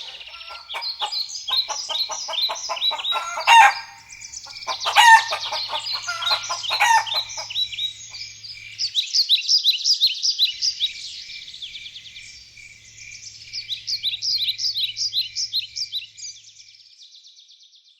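Birds calling: many quick, high chirps and trills overlapping, with a couple of louder sharp calls in the first few seconds, then fading out at the end.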